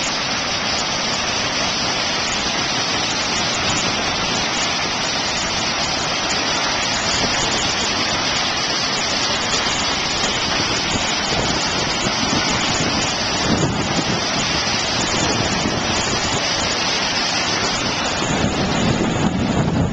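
Large waterfall pouring steadily: a constant, even rush of falling water and spray. A couple of low swells come about two-thirds in and near the end.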